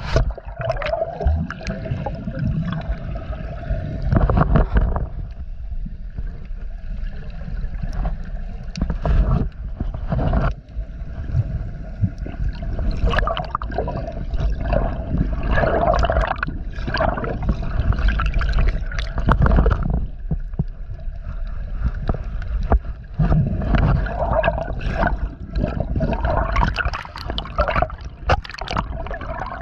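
Muffled water sloshing and bubbling around a chest-mounted action camera in its waterproof housing during snorkeling, in irregular surges over a constant low rumble.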